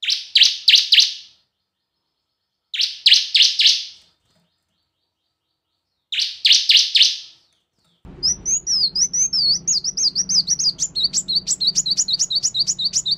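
Bar-winged prinia (ciblek) calling in three short bursts of about four sharp, high notes each, a couple of seconds apart. About eight seconds in a different recording takes over: a small bird's rapid, continuous twittering song over faint background noise.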